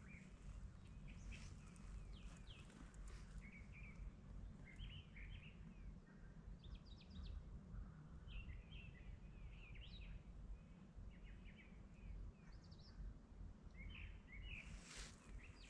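Faint outdoor birdsong: many small birds chirping and trilling in short calls, over a steady low rumble, with a short burst of hissy noise near the end.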